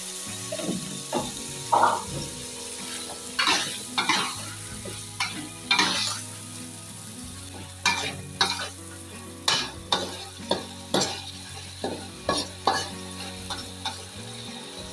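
A spatula scraping and knocking irregularly against an aluminium wok as potatoes and beef tendon are stirred through frying spice paste. A steady sizzle runs underneath.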